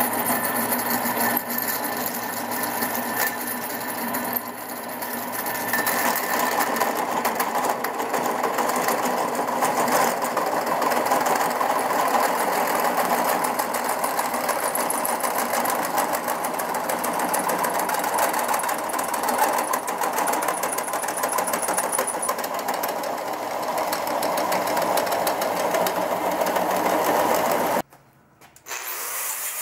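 Drill press spinning a hole saw through rigid aluminum conduit, a steady, loud cutting sound with fine rapid chatter of the teeth, the cut wetted with soapy water. It cuts off abruptly about two seconds before the end, and a quieter grinding sound takes over in the last second.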